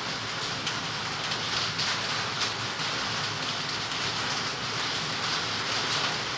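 Steady rain falling: a constant hiss with scattered light drop ticks.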